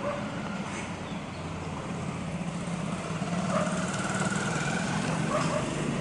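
Steady low mechanical hum of a running motor, with faint high bird calls over it, including a short rapid trill about midway.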